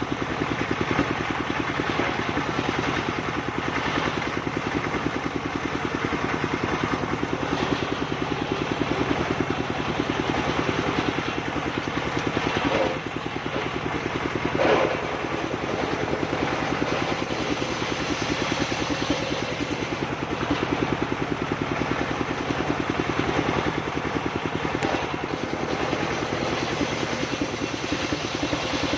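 Engine-driven circular sawmill running steadily, with a brief clunk about halfway through.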